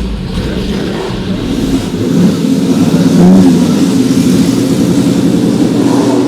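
Ferrari 250 GT SWB's Colombo V12 running under throttle, its note wavering in pitch and growing louder about two seconds in.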